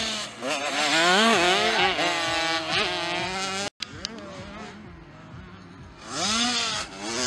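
Youth motocross bike engine revving hard, its pitch climbing and dropping again and again with throttle and gear changes. The sound cuts off abruptly a little past halfway. A fainter engine then returns and swells again near the end as a bike comes up close.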